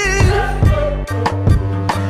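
A song with a sung vocal line over a bass line and a drum beat.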